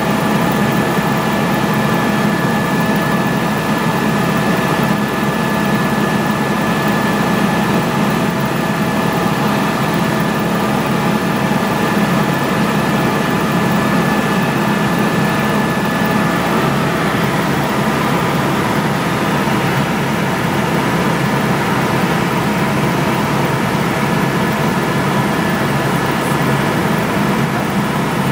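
Steady aircraft engine drone heard inside the cabin, a loud even rumble with a constant high whine over it.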